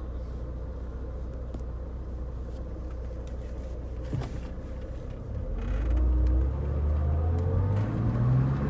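Mercedes-Benz W124 300E's straight-six engine running steadily while driving, then pulling harder about five seconds in. It gets louder and its pitch rises under acceleration.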